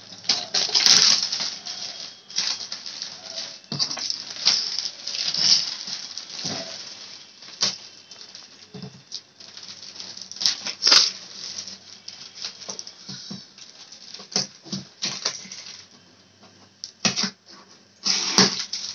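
Plastic mailer and paper packaging crinkling and rustling as a parcel is cut open with scissors and torn apart, in irregular bursts with sharp crackles.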